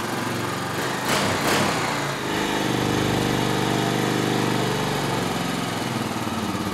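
A 2003 Honda Rancher TRX350's single-cylinder four-stroke engine running just after start-up, idling high. There is a short louder surge about a second in, then steady running with a stronger note through the middle that eases near the end. The idle had been raised to get around a clogged slow jet.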